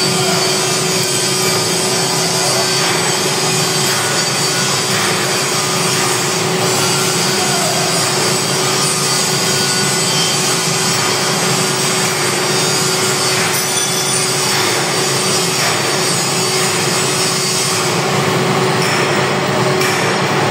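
Metal lathe running in a machine shop: a steady loud hum with one constant tone under an even hiss.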